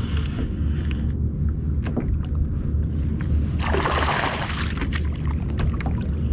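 A hooked fluke thrashing at the surface beside the kayak, a loud splash of water lasting about a second, starting about three and a half seconds in. Under it runs a steady low rumble with a few small knocks.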